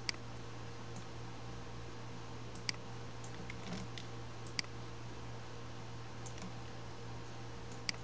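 Computer mouse clicking: four sharp single clicks a couple of seconds apart, with a few fainter ticks between them, over a steady low electrical hum.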